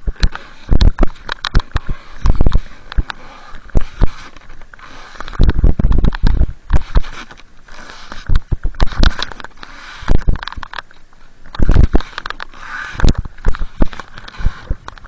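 Snowboard pushing through deep powder snow, heard from a camera on the rider: irregular loud knocks and crunches of board and snow, with hard breathing between them.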